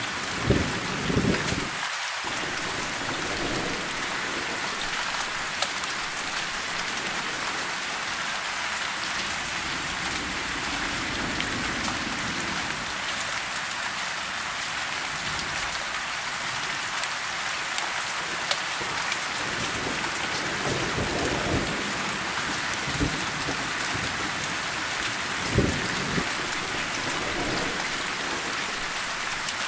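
Steady rain falling, with short low rumbles of thunder about a second in, again around twenty seconds in, and once more near the end.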